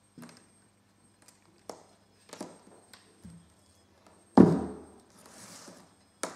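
Handling noise from alligator clips and test leads: several light clicks and taps, then one loud thunk about four and a half seconds in as a metal-cased capacitor is set down on the tabletop, followed by a soft rustle of wires and a sharp click near the end.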